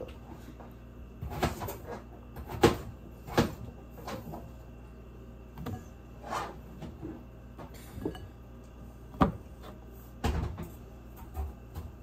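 Irregular light knocks and clatters of things being handled and set down in a home kitchen, about a dozen in all. The loudest comes about two and a half seconds in.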